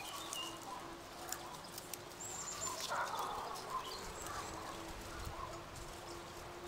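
Garden ambience of small birds chirping, with raspberry canes' leaves rustling about three seconds in as the berries are picked by hand.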